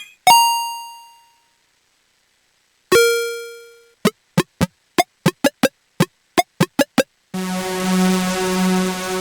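UVI 8-Bit Synth presets being played: two single bell-like notes, the second lower, each dying away over about a second, then a quick run of about a dozen short plucked blips, and from about seven seconds a sustained synth chord that holds on.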